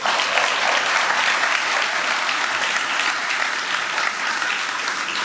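Audience applauding, the clapping starting abruptly and keeping up at an even level.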